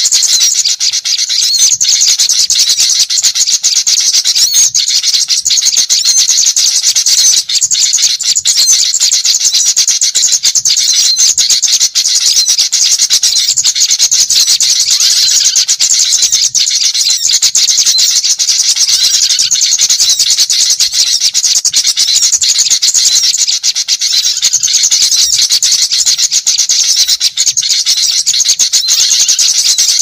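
Dense, unbroken chorus of many small wild birds chirping and twittering rapidly all at once, high-pitched and loud. A bird-lure recording of noisy small birds, played to draw wild small birds in.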